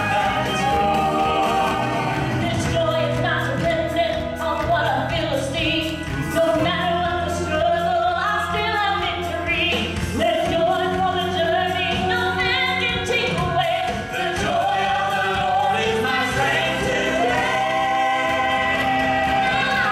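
Southern gospel trio singing in harmony, with several voices over a steady instrumental accompaniment.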